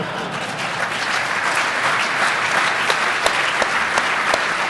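Audience applauding, a dense clatter of many hands with a few sharp single claps standing out.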